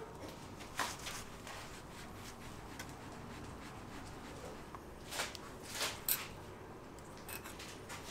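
A handful of short scrapes and taps from handmade candy being worked by hand on a work table, over a faint steady room hum.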